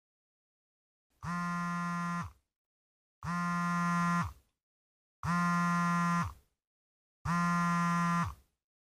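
Smartphone vibrating with an incoming call: four buzzes about a second long, one every two seconds.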